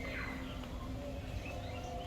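Birds chirping and whistling, short calls that glide down in pitch, over a steady low rumble of background noise.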